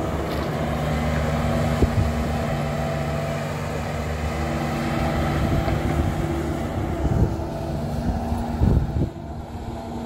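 Kubota SSV75 skid steer's diesel engine running steadily under load while working a compost screening bucket, with a few short knocks about two seconds in, around seven seconds and just before nine seconds.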